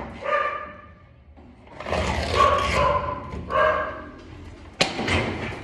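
A dog giving a series of drawn-out, steady-pitched cries, with a single sharp knock a little before five seconds in.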